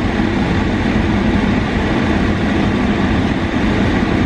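Air conditioning blowing hard inside a car, a loud, even rush of air over a low hum.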